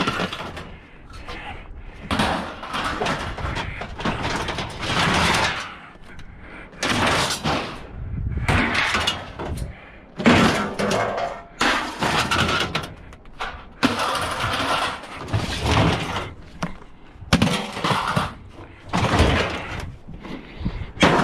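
Scrap sheet-metal appliances being handled on a trailer: repeated, irregular bursts of metal scraping and clattering.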